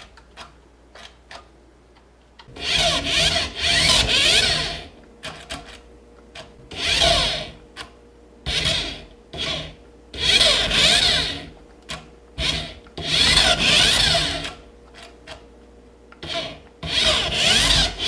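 Air Hogs Raoul Caroule remote-control toy car's small electric motor and gears whirring in repeated runs of one to two seconds, with short pauses and a few clicks between runs.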